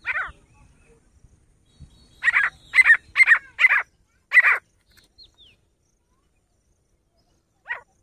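Grey francolin calling: one short note, then a run of five loud, harsh notes about two a second, and one more short note near the end.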